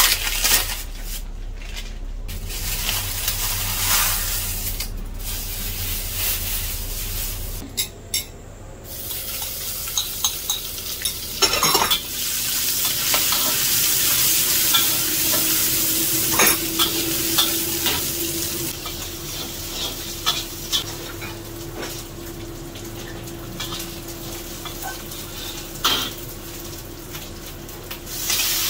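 Minced garlic sizzling in hot oil in a wok while a metal spatula stirs and scrapes it against the pan. For the first few seconds a plastic bag is rustled over a food container.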